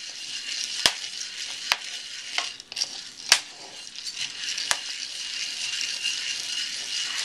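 Coffee beans being stirred with a wooden stirrer in a hot cast iron pan: a steady rustling, sizzling rattle of roasting beans. A few sharp clicks stand out, about one a second in the first half.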